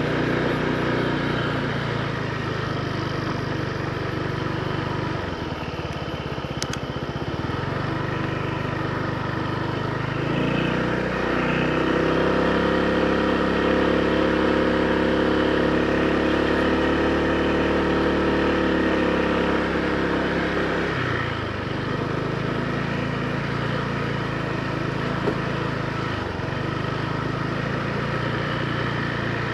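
Honda PCX160 scooter's single-cylinder engine running while riding. About ten seconds in its note rises as the throttle opens and stays higher for about nine seconds, then drops back.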